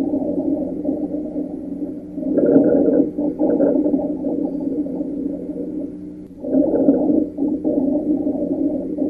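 Recorded lung sounds as heard through a stethoscope: a continuous low-pitched, humming breath sound that swells with each breath, about two and a half and six and a half seconds in, roughly every four seconds.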